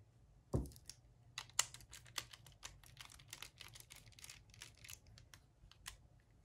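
Small screwdriver working a screw out of the underside of a plastic Glorious Model O Wireless mouse: a thump about half a second in, then a quick run of small irregular clicks and ticks from the tool and the mouse shell.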